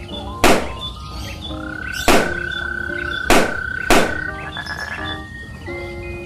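Small latex balloons popped one after another with a knife point: four sharp bangs, the last two close together, over soft background music with chirpy tones.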